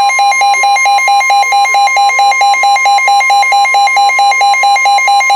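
Weather radio receiver sounding its alert alarm: a loud, rapid, harsh beeping of several beeps a second. Under it runs the steady NOAA Weather Radio warning alert tone, which announces that a warning broadcast follows.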